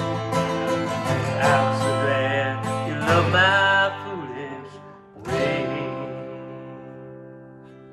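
Acoustic guitar and voice ending a country-style song: a last held sung note over the guitar, then a final strummed chord about five seconds in that rings out and slowly fades.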